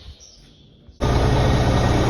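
An engine running steadily with a strong low hum. It cuts in abruptly about halfway through, after a quiet first second.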